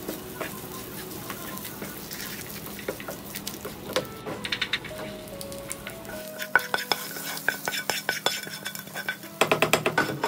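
A tempering for kootu curry sizzling in hot oil in a pan, with grated coconut being fried golden. A spatula stirs and scrapes it, clicking against the pan, and the clicks come faster in the second half. Soft background music plays underneath.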